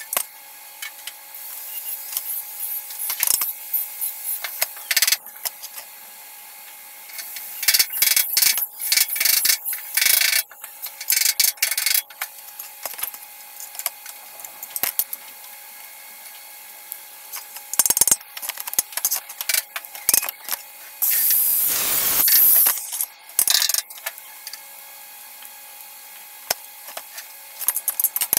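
Workshop hand-tool work: irregular clicks, scraping and rubbing, with a louder noisy burst lasting about two seconds a little over twenty seconds in.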